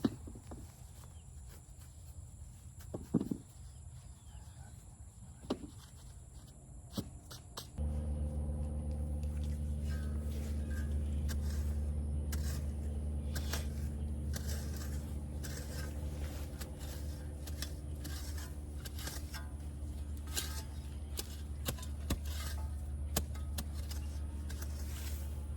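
Garden digging with scattered clicks and scrapes. About eight seconds in, a steady low motor hum starts suddenly and keeps running under them.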